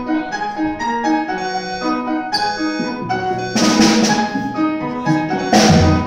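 A grand piano plays a melodic line. About halfway through, a drum kit joins with cymbal crashes and bass drum hits, and a crash lands again near the end.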